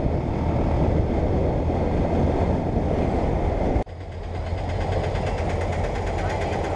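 Wind rush and engine of a Bajaj Pulsar motorcycle riding at speed. About four seconds in, this cuts abruptly to a steady rumble of idling motorcycles and a train at a railway level crossing.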